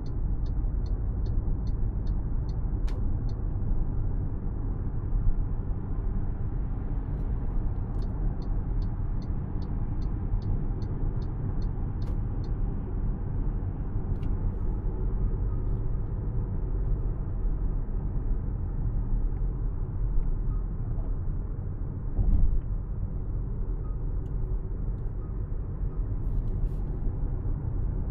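2025 MG HS on the move: steady low road and drivetrain noise. Twice a run of light, quick ticks comes through, about three a second, and there is a brief thump a little after twenty seconds in.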